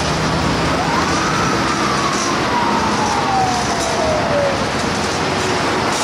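Fire engine's siren wailing: it rises quickly about a second in, then falls slowly over the next few seconds, over steady traffic noise.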